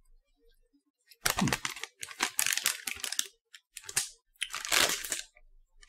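Plastic snack packaging crinkling as it is picked up and handled, in about four rustling bursts.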